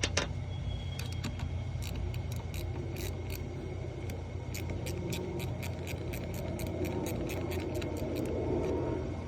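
Light metallic clicks and rattles of hand tools and small metal parts being handled, many in a row at an uneven pace of roughly three or four a second, over a steady low hum.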